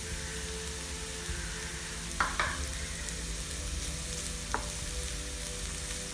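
Diced carrots, shallots and grated coconut sizzling in oil in a pan while a wooden spatula stirs them. Two quick knocks of the spatula against the pan come a little after two seconds, and one more past the halfway point.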